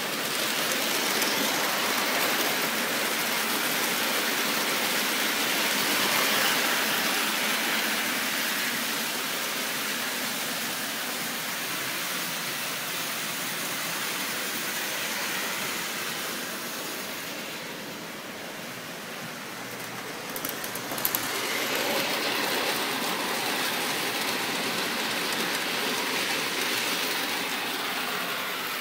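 Toy electric trains running on three-rail O-gauge tinplate track, giving a steady whirring rumble of wheels and motors. It eases off a little about two-thirds of the way through, then a few sharp clicks come as the rumble picks up again.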